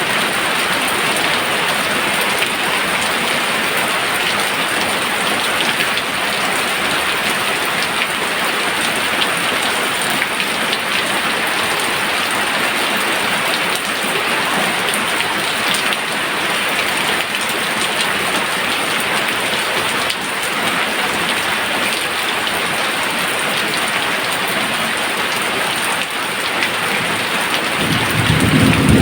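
Steady rain falling, with a low rumble of thunder swelling up near the end.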